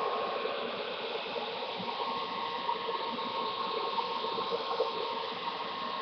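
Handheld hair dryer running steadily: an even rush of air with a thin steady whine, blown over a laptop screen bezel to warm the adhesive behind it.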